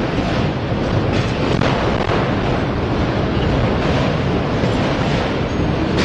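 Freight train rolling past close by, a steady loud rumble and rush of wheels on rail.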